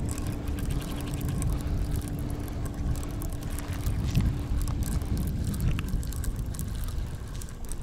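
Wind buffeting the microphone: a loud, rough low rumble, with a faint steady hum under it that stops about five seconds in.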